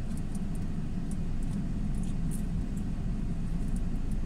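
Steady low rumble of road traffic, even throughout with no distinct events standing out.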